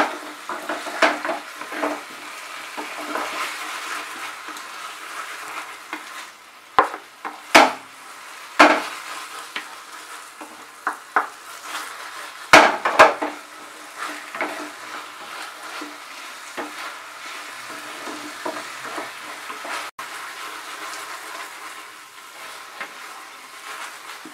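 Chicken drumsticks in a thick soy-chilli sauce sizzling in a frying pan over a raised flame, stirred and turned with a wooden spatula that knocks against the pan at irregular moments; this is the last minute of high-heat tossing that finishes the dish.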